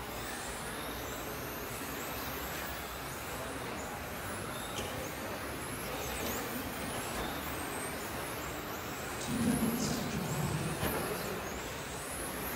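Several electric 1:10 RC touring cars racing, their high-pitched motor and drivetrain whines repeatedly rising and falling as they accelerate and brake, over a steady background hiss.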